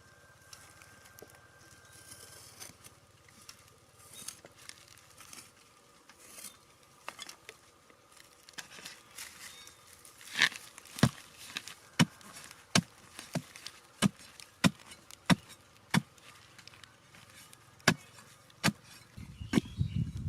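A series of sharp knocks, at first faint and scattered, then loud and regular from about ten seconds in, roughly one and a half a second. A low rumble comes in near the end.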